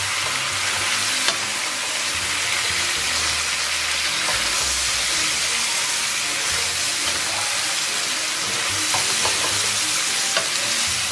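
Pork ribs in a thick bean-paste and soy sauce sizzling steadily in a wok as a wooden spatula stir-fries them, with a few light clicks of the spatula against the pan.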